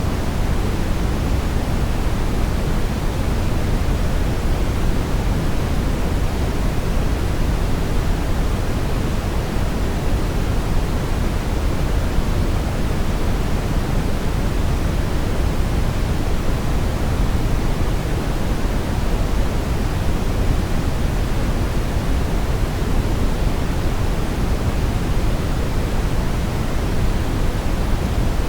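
Brown noise: a steady, even rushing hiss weighted toward the low end, deep and rumbling with little high treble, unchanging throughout.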